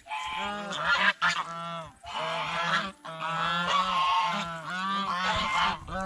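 Several domestic white geese honking, calls overlapping almost without pause.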